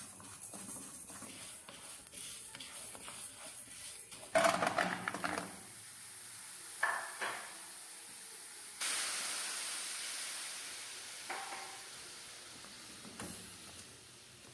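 Split moong dal rattling and scraping as it is dry-roasted and stirred with a wooden spatula in a nonstick pan, with a louder clatter about four seconds in. From about nine seconds a steady sizzling hiss, jaggery melting in liquid in the hot pan, slowly fading.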